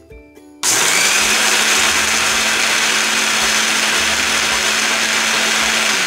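Kirin countertop blender switched on about half a second in. Its motor quickly spins up to a steady high speed, loudly grinding a jar of tortilla chips into crumbs.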